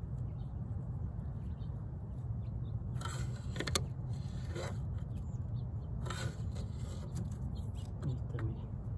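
A plastic crate propped on a wooden stick is handled and shifted, giving two brief scraping rustles with a few light clicks about three seconds apart, over a steady low rumble.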